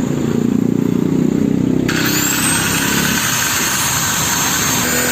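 Power tool with a cutting disc running, then starting to cut into metal about two seconds in: a steady hiss comes in suddenly along with a thin rising whine.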